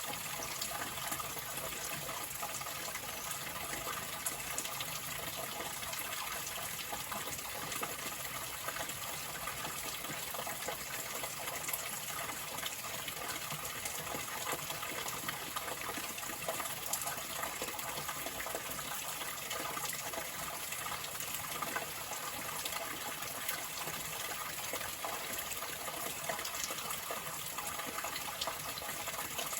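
Water flowing steadily, an even rushing hiss with no pauses or changes.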